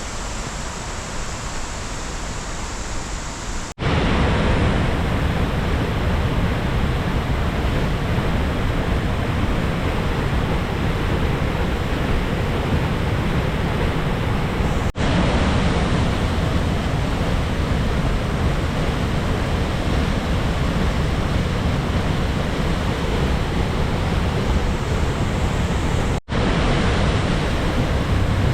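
Steady roar of a large waterfall in heavy flow, swollen after days of rain. It gets louder about four seconds in and breaks off for an instant twice.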